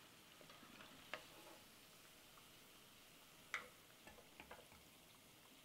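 Faint sizzle of spinach fritters deep-frying in oil, with a few light clinks from the metal spoon as the fried pakoras are lifted out; the sharpest clink comes about three and a half seconds in.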